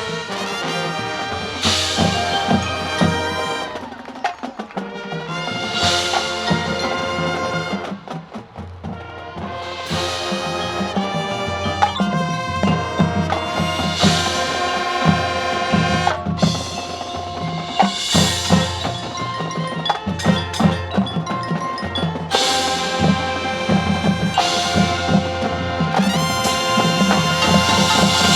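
Marching band playing: sustained brass chords over drumline and mallet percussion, with a crash about every four seconds.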